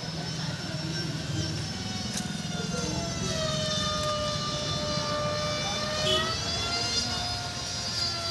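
A steady mechanical drone, a low rumble at first, joined about three seconds in by a whine whose pitch wavers slightly.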